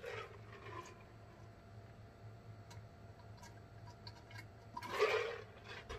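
Quiet gulping and swallowing while drinking from a large plastic mug, heard as a scatter of faint clicks, then a breathy exhale about five seconds in.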